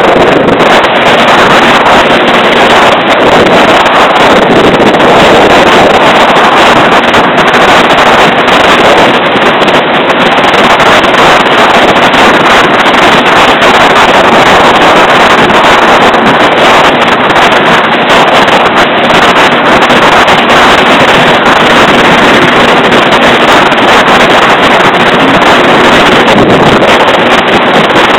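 Jet ski running under way across open water, its steady engine hum under loud, steady wind noise on the microphone.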